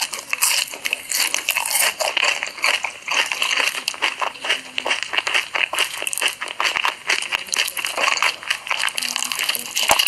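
Close-miked ASMR eating sounds: a dense, continuous run of crisp crunching and crackling as crunchy food such as corn dogs is bitten and chewed.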